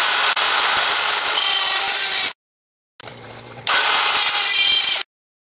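Handheld DeWalt rotary tool with an all-purpose bit grinding through a PVC sprinkler body: a loud grinding whine with a steady high tone. It breaks off abruptly into silence about two seconds in and again near the end, then comes back lower before grinding loud again.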